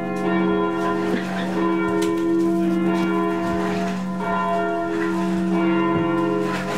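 A steady wash of ringing, bell-like tones that begins suddenly and holds, swelling and fading slightly.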